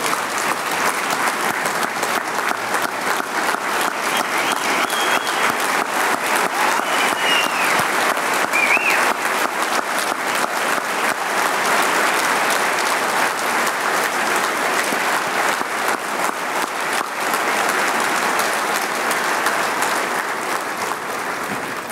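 Large crowd giving a standing ovation, many people clapping steadily and densely for about twenty seconds.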